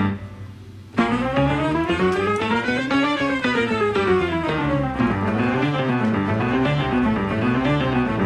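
Background music: an instrumental tune whose notes climb and then fall back down, after a brief lull at the start.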